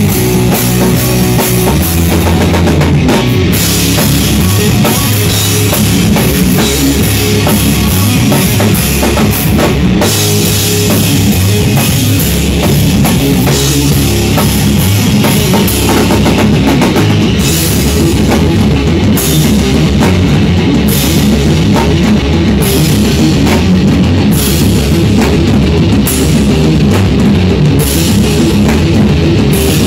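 Stoner rock band playing heavy, loud rock: drum kit, electric guitar and bass together in a steady driving groove.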